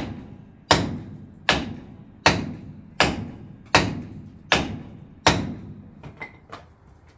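Hammer blows on a seized brake drum: eight heavy metal-on-metal strikes about three-quarters of a second apart, each ringing briefly, then two lighter taps near the end. He is hammering to shock loose the rusted, seized drum.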